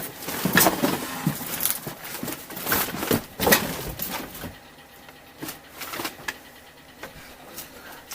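Clinks, knocks and rustling of parts and tools being handled during motorcycle assembly. The sounds are busy for the first four and a half seconds, then thin out to a few scattered clicks.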